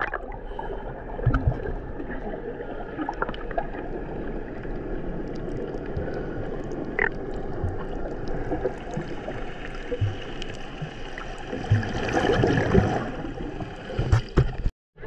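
Sea water splashing and sloshing, a steady churning noise with scattered small knocks, a little louder for a second or so near the end.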